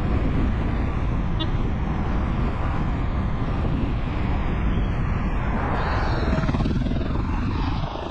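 Steady, loud rushing noise of road travel: vehicle and wind noise with no distinct engine note.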